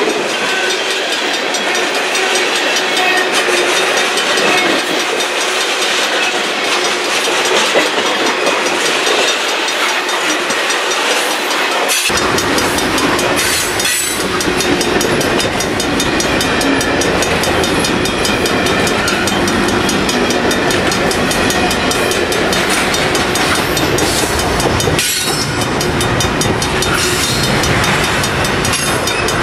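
Freight cars of a CN manifest train, tank cars and then double-stack container well cars, rolling past close by: a steady rumble and rattle of steel wheels on rail. The deep low rumble comes in much fuller about twelve seconds in.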